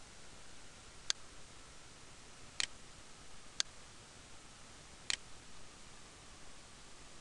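Four sharp clicks of a computer mouse button, spaced a second or so apart, over a steady faint hiss.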